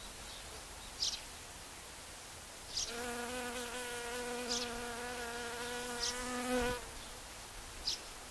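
A honeybee buzzing in flight close by, a steady hum that starts about three seconds in and stops about four seconds later. Short high chirps recur roughly every second and a half over a steady outdoor hiss.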